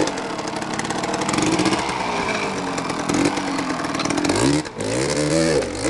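Off-road dirt bike engines running under load on a rough descent. The pitch rises and falls as the throttle is worked, with a clear rev up and down in the last second and a half.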